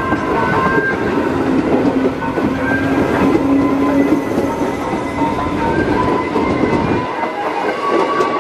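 Train wheels and bogies rolling over a railway turnout, with a steady metallic wheel squeal over the rumble. The low rumble stops about seven seconds in as the last wheels clear the switch.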